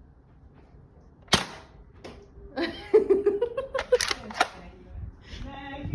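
Nerf foam-dart blaster firing: one sharp snap about a second in, then several more quick snaps about halfway through. Over these a person is laughing and squealing.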